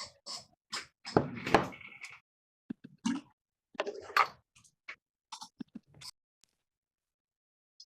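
Scattered short knocks and clicks with a denser cluster of rustling about a second in, then quiet for the last second or so.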